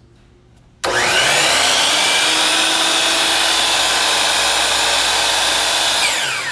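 DeWalt DWS779 12-inch sliding miter saw switched on about a second in, its motor and 60-tooth blade spinning up fast to a steady high whine, running free with no cut and running smoothly. Near the end the trigger is let go and the pitch starts to fall as the blade winds down.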